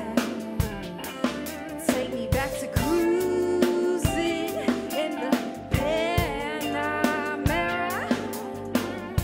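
Live band playing an R&B song: a female lead singer sings quick sliding vocal runs over keyboard, electric guitar, bass and a drum kit keeping a steady beat.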